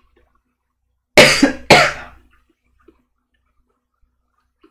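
A man coughing twice in quick succession, two loud, sudden coughs about half a second apart.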